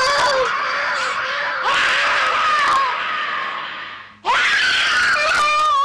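A woman screaming: one long, high-pitched scream that fades away a little before four seconds in, then a second that starts abruptly just after and holds.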